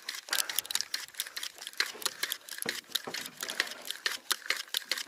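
Rapid, irregular mechanical clicking, several sharp clicks a second.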